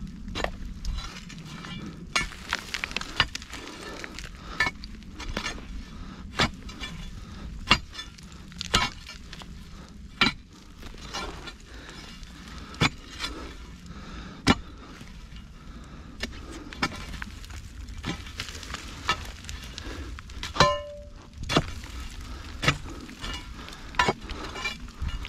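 Steel pry bar jabbing and levering into stony soil and roots: irregular sharp strikes every second or two, with scraping and trickling of dirt and gravel in between. One strike about twenty seconds in rings briefly off stone.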